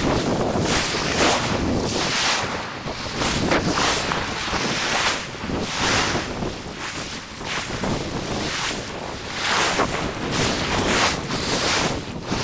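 Surf breaking and washing up the shore, with wind gusting across the microphone in uneven swells.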